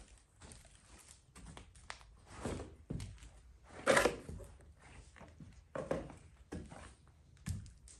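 Footsteps and thuds on a wooden floor indoors, uneven, with the loudest thud about four seconds in.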